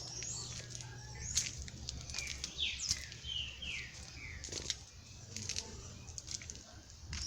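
Birds chirping in a garden: a run of about five short, falling chirps in the middle, with scattered sharp clicks and a steady low hum behind.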